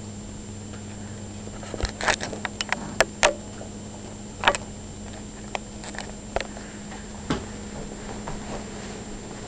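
A baby being spoon-fed: scattered small clicks and taps, bunched about two to five seconds in, with a few more later, over a steady low hum.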